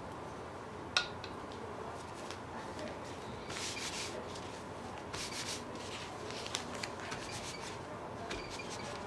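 A folded sheet of paper rubbed and pressed by hand over an ink painting on paper, a dry rasping rub in several short strokes. A sharp tap about a second in is the loudest moment.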